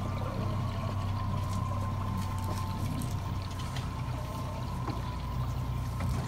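Small river boat's motor running with a steady low hum, with water swishing and trickling along the hull as the boat moves.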